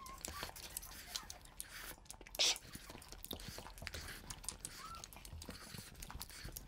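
Faint mouth and hand eating sounds: soft clicks and smacks of chewing and of fingers mixing rice and duck curry on the plates, with one louder brief rustle about two and a half seconds in.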